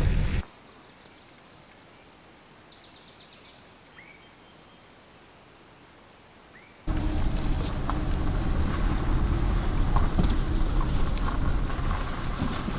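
Low rumble of a vehicle driving, cut off abruptly to a quiet stretch where a small bird gives a quick trill of high notes and two short rising chirps, then the rumble starts again just as abruptly about seven seconds in.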